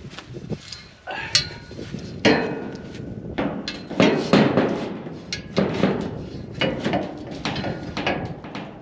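Irregular knocks and clanks, a dozen or so sharp hits with uneven gaps, from tent-frame poles being worked on and fitted together.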